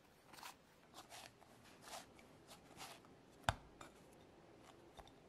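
Faint soft rustling and squishing of hands kneading a glutinous rice flour dough against cling film in a glass bowl, a light stroke about every half second. One short sharp tap about three and a half seconds in.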